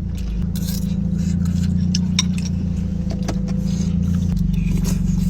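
Car engine idling through its exhaust with a steady low drone, with light clicks and scrapes from eating over it.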